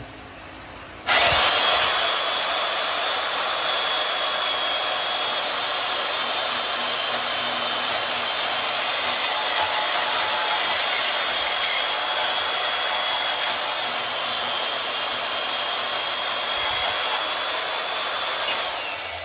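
Portable bandsaw switched on about a second in, running steadily with a high motor whine as it cuts through a thin strip of stock, then switched off abruptly near the end.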